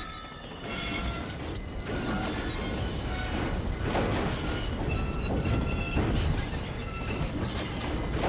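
A train's steel wheels screeching and grinding on the rails under braking, with high squeals and metallic clanks. Near the end a hand brake wheel is cranked with a ratcheting clatter.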